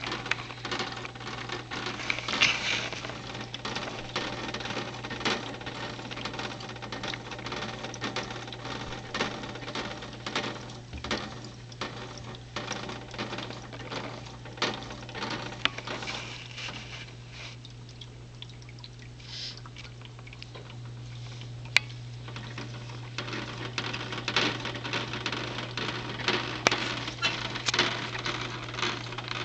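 Water from a small two-tier tank waterfall splashing and trickling into its pool, with many small drips and plinks, over a steady low hum.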